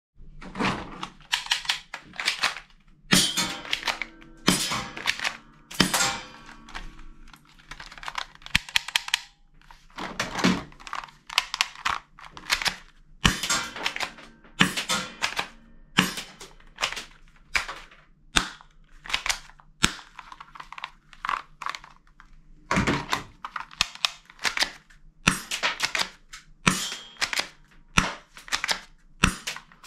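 Plastic toy guns clattering and knocking against one another and the wooden crate as they are rummaged through and picked up: clusters of sharp clacks with short gaps between them.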